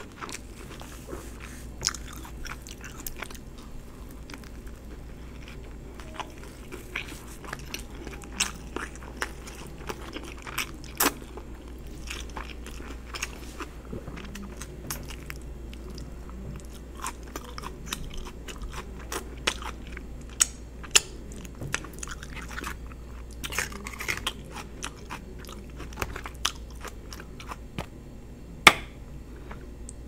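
Close-miked chewing and biting of a meatloaf sandwich on an English muffin and gravy cheese fries, with many short wet mouth clicks and smacks. A steady low hum runs underneath, and there is one sharper, louder click near the end.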